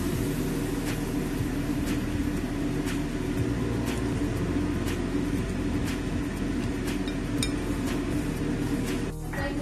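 Wire whisk beating egg and cornstarch batter in a glass bowl, its wires clinking against the glass about once a second. A steady low hum runs underneath.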